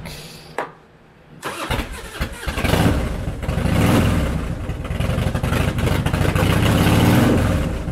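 2000 Harley-Davidson Softail Night Train's 88 cubic inch V-twin, fitted with a Vance & Hines exhaust and an open air intake, is started about a second and a half in after a faint click. It then runs and is revved with the throttle several times.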